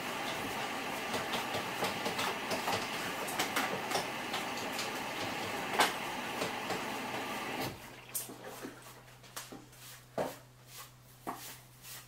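Samsung Eco Bubble front-loading washing machine at the start of its cycle, water rushing in as it fills, with scattered clicks and knocks. The rush cuts off suddenly about eight seconds in, leaving a low steady hum and occasional clicks.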